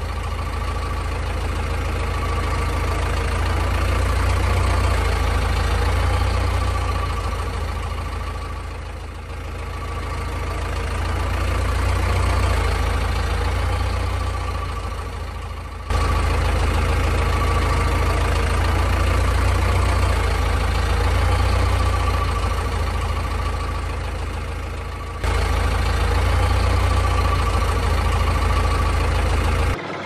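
A steady engine-like drone: a deep rumble with a steady hum over it. It swells and fades slowly and breaks off abruptly twice partway through, then once more near the end.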